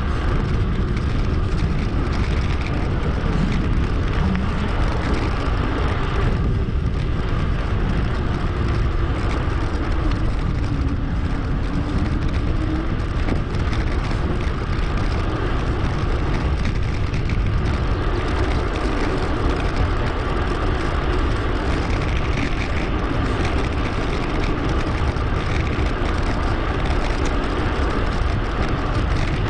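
Wind buffeting an action camera's microphone during a bicycle ride, a steady noise heaviest in the low end, with road and tyre noise under it, played back sped up to two and a half times normal speed.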